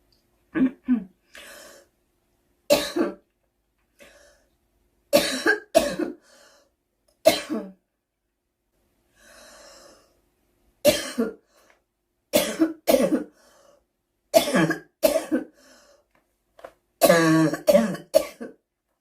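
A girl coughing repeatedly: short single and double coughs spaced a second or two apart, with a few quieter breaths between them. Near the end comes a longer, voiced run of coughing.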